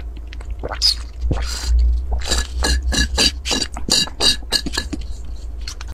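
Drink being sucked through a straw from a plastic bottle: wet sipping and gurgling pulls, a few at first, then a quick even run of about three to four a second from about two seconds in.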